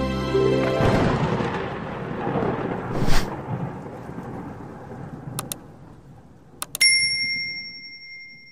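Logo-reveal sound effects: a rumbling, thunder-like whoosh that fades, with a sharp hit about three seconds in. Near the end come a few mouse clicks and a bright bell ding that rings out, the usual subscribe-button and notification-bell effects.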